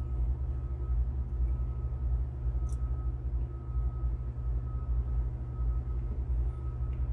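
Telehandler diesel engine idling with a steady low rumble, under a faint steady high whine.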